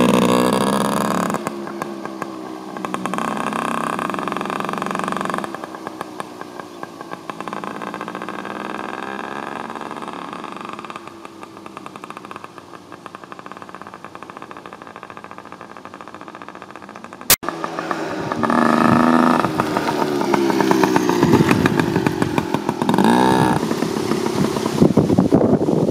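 Small Yamaha children's dirt bike engine revving up and down as it rides away, growing fainter. After an abrupt cut partway through, the engine is close and louder again, its pitch rising and falling as the throttle is worked.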